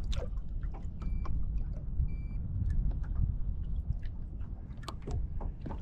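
Two short electronic beeps about a second apart from a handheld digital fish scale weighing a crappie, with a few small handling clicks, over a steady low rumble.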